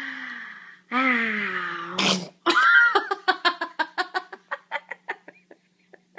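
A sneeze: a drawn-out voiced 'ah' ending in a sharp 'choo' about two seconds in, followed by a run of laughter that fades out over about three seconds.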